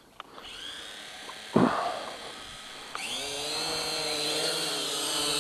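Syma X8HG quadcopter's motors and propellers spinning up on the launch pad: a faint whine from the start, then about three seconds in a louder steady whine that slowly climbs in pitch and level as the throttle is raised for takeoff. A short loud knock comes about a second and a half in.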